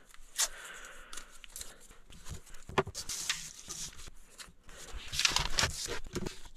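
Blue painter's tape being pulled off the roll and torn, with paper sheets rustling as they are taped down: a run of short scratchy bursts, busiest about three seconds in and again near the end.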